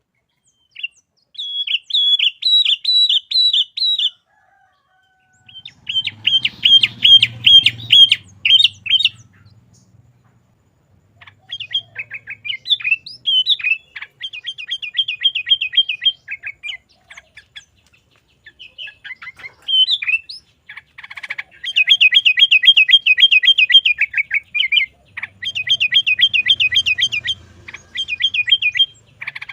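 Sooty-headed bulbul (kutilang) singing in a vigorous 'gacor' style: a series of phrases, each a fast run of repeated chattering notes, with short pauses between them.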